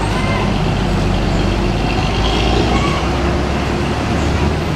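A bus's diesel engine running close by with a low, steady rumble, over general traffic noise.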